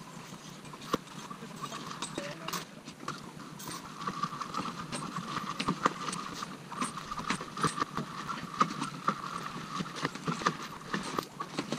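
Ice being broken on a frozen lake: thrown pieces hit and skitter across the ice surface in a run of sharp knocks and clatters, with a steady high ringing from the ice joining about four seconds in.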